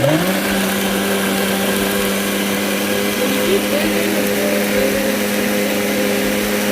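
Electric blender switched on and blending a chipotle sauce. Its motor spins up to speed in the first moment, then runs loud at a steady pitch.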